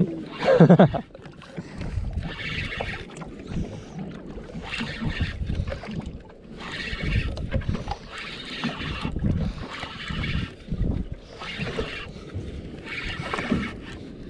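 Spinning reel being cranked as a hooked fish is reeled in on a bent jigging rod, with a rhythmic swishing about every second and a half over wind and water sounds around the boat. A brief, loud, rising sound comes about half a second in.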